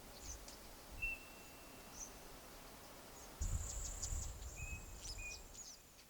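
Small birds calling: short high chirps and a thin whistle held for about a second, then from about halfway a quick run of high chirps and whistles over a low rumble.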